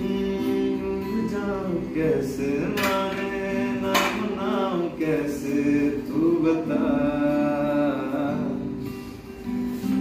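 Acoustic guitar strummed in chords, with a voice singing a melody over it.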